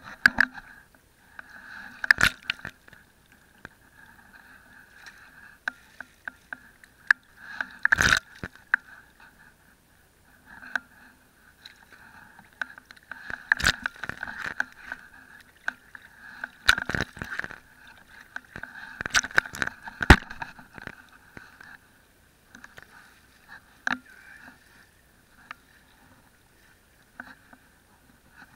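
Legs in waders wading through shallow seawater: water sloshing and splashing around them with each step, in irregular strokes, some louder than others.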